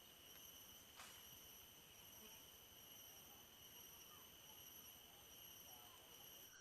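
Near silence with faint, steady, high-pitched insect chirring, like crickets or cicadas, and one faint click about a second in.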